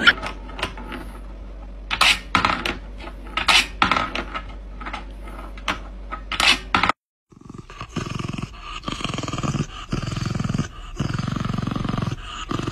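A few sharp clicks and knocks over a steady low hum, then after a brief gap a dog growling in a run of rhythmic low pulses.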